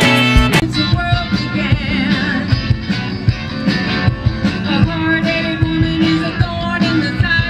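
Live band music with drums, electric bass and guitar, cutting in abruptly about half a second in.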